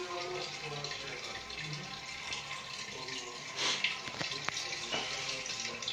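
Water running steadily through the heating system as it is flushed, with a few sharp knocks about three and a half to five seconds in.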